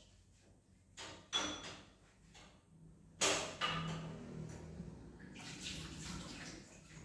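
Dishes being washed at a kitchen sink: a few sharp clatters of crockery, then water running from the tap for a few seconds from about three seconds in.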